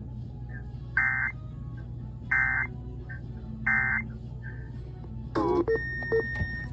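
Emergency Alert System end-of-message code: three short buzzy digital data bursts about 1.3 s apart, played over a radio with a low hum underneath. Just past the fifth second comes a cluster of electronic chirps and short beeps.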